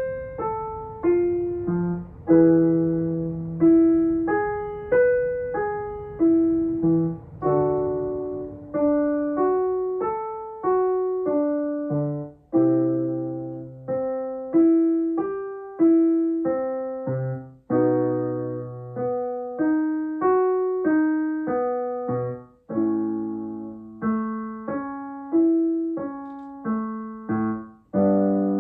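Piano accompaniment for a vocal warm-up: short note patterns played up and down, each pattern repeated a step higher or lower, every note struck and left to fade.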